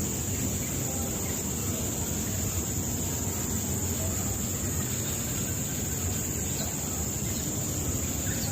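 Steady high-pitched insect chirring, unbroken throughout, over a low background rumble.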